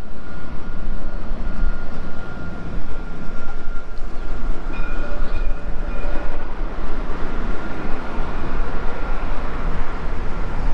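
Dubai Tram running, a steady rumble with a thin high whine throughout and a brief higher tone about five seconds in.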